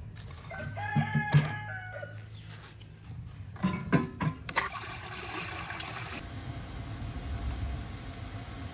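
A rooster crows once, about a second in, over a steady low background. Around four seconds in come several sharp knocks and clanks as a large aluminium pot is set down on a wood-burning stove.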